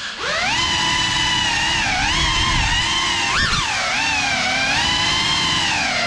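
GEPRC FPV quadcopter's brushless motors and propellers whining, the pitch rising and falling with the throttle. The whine dips briefly at the start, then spools back up, and about three and a half seconds in it jumps up sharply and drops back.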